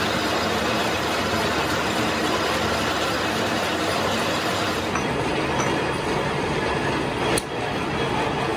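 Old gear-hobbing machines running with a steady mechanical din. A single sharp click comes about seven seconds in.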